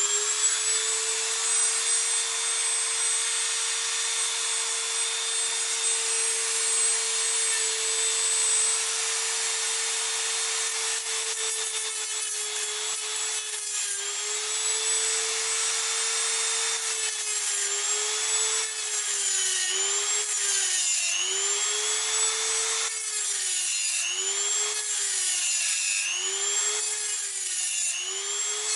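Dremel rotary multitool running a thin cut-off disc through a metal driveshaft boot clamp: a steady high whine with a grinding hiss. In the second half its pitch dips and recovers about once a second as the disc is pressed into the metal.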